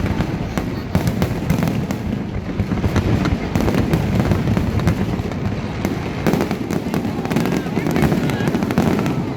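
Fireworks display: a steady run of bangs and crackles at irregular intervals, over the voices of a crowd.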